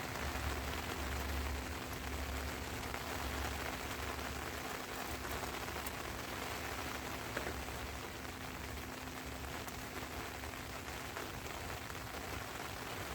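Steady rain falling, a dense even patter with the odd sharper drop tick.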